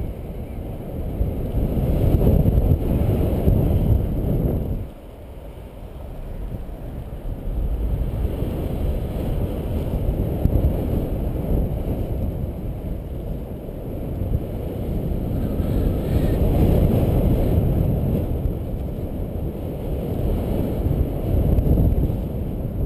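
Airflow buffeting the microphone of a camera carried by a paraglider in flight: a low wind rumble that swells and eases, dropping away suddenly about five seconds in and then building again.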